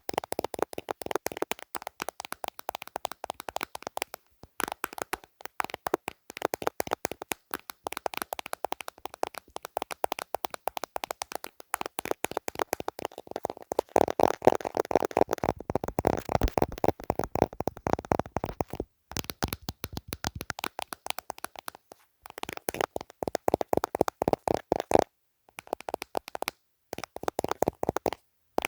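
Rapid, dense tapping on a small handheld device's casing, in flurries broken by a few short pauses, heaviest about halfway through.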